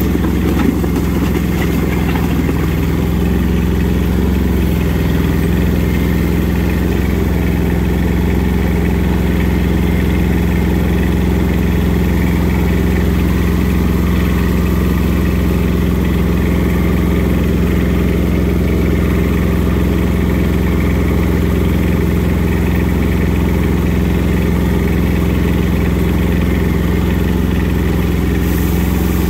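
Kubota compact tractor's diesel engine running steadily while the tractor drives along a gravel driveway, heard close up from the operator's seat.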